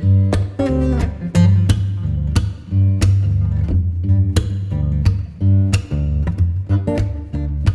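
Background music: plucked acoustic guitar over a bass line, with evenly spaced notes about three a second.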